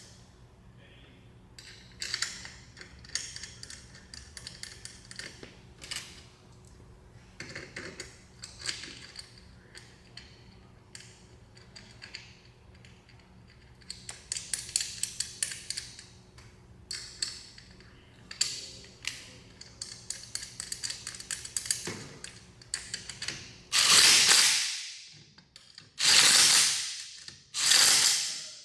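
Metal clicks and clinks as caster bolts are fitted and tightened with a ratcheting torque wrench, ending with four loud strokes about two seconds apart.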